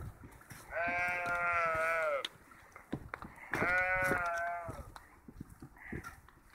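Domestic sheep bleating: two long bleats, each about a second and a half, the second about two and a half seconds after the first. The sheep are begging for food, drawn by the smell of a snack.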